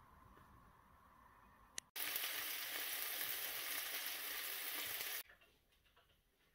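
Chopped tomato, tuna and garlic sizzling in hot oil in a frying pan: a steady sizzle of about three seconds that starts and stops abruptly, the loudest sound here.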